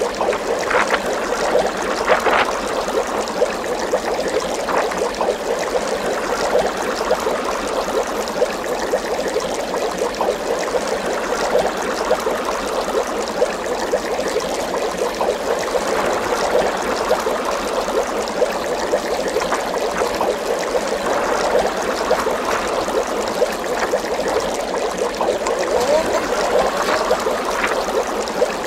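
Steady bubbling, trickling water, a continuous stream of small pops and gurgles.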